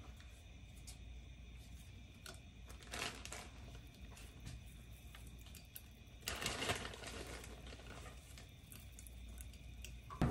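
Plastic bag of Sichuan peppercorns rustling as peppercorns are tipped into a saucepan of water, loudest for under a second about six seconds in, after a shorter rustle about three seconds in. A sharp click near the end.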